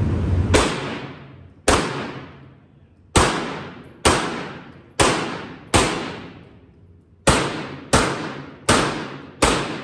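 Ten pistol shots fired at an uneven pace, from about a second and a half apart down to under a second apart. Each is a sharp crack followed by a fading echo.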